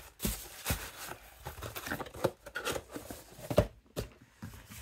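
Plastic packaging crinkling and rustling as items are handled and moved about, with scattered light knocks; the sharpest knock comes about three and a half seconds in.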